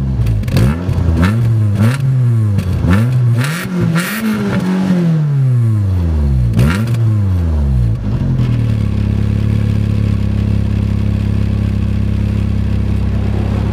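MG ZR 160's 1.8 VVC four-cylinder engine on its standard exhaust, revved in a string of short throttle blips for the first seven seconds or so. It then drops back and settles to a steady idle.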